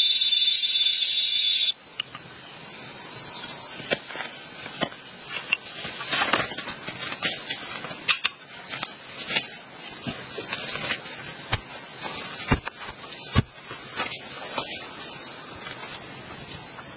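Forest insects calling: a steady high whine with a shorter, lower pulsed call repeating about every second and a half. Sharp knocks and cracks of green wooden sticks being cut and handled come through now and then, the loudest two about twelve and thirteen seconds in. A loud hiss near the start cuts off suddenly.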